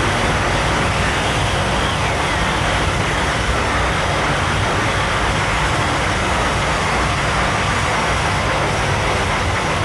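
Contact-miked angle grinder cutting into a car tire, mixed with a contact-miked calculator scraped across sandpaper: a loud, unbroken wall of amplified grinding noise with a faint wavering whine.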